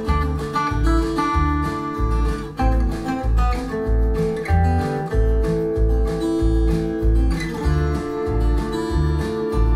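Folk music with acoustic guitar over a steady bass pulse about twice a second, played back through Audiolab Symbol two-way bass-reflex tower loudspeakers and picked up by a microphone in the room.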